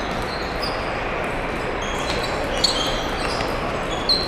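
Table tennis balls clicking off paddles and tables: sharp, ringing ticks scattered through, the loudest about two and a half seconds in and just before the end. Under them runs the steady hum of a large hall with many games going on.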